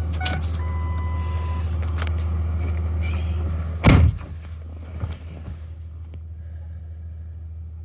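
A pickup truck door slams shut about four seconds in, over a diesel engine idling steadily; after the slam the idle is quieter and muffled. A single electronic chime tone sounds for about a second shortly after the start.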